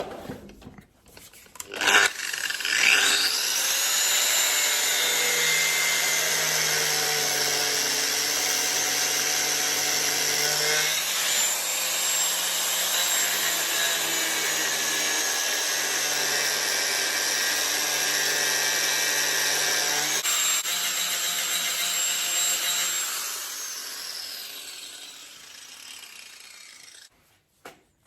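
An electric power tool's motor spins up about two seconds in and runs steadily for about twenty seconds, its pitch shifting a couple of times, then slowly winds down over several seconds as it coasts to a stop.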